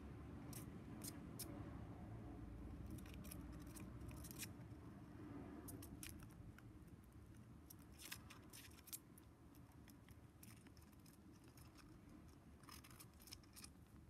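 Pied budgerigar's beak nibbling and snipping at a cardboard toilet-roll core and the paper strips on it, with its claws gripping the cardboard: faint, sharp clicks in short clusters, over a low hum.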